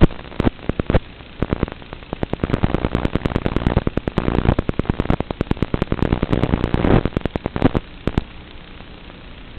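Static hiss and dense crackling from an analog FPV video receiver's audio channel, as recorded by the goggle DVR. The crackling thickens into a rapid run of pops in the middle and drops back to a steadier hiss near the end.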